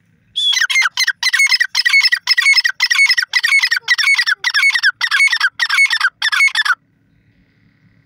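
Grey francolin (teetar) calling close up: a loud run of shrill, harsh, rapidly repeated notes, about four a second, that goes on for some six seconds and then stops abruptly.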